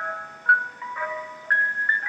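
Ice cream truck jingle: a bell-like chiming melody of struck notes, about two notes a second.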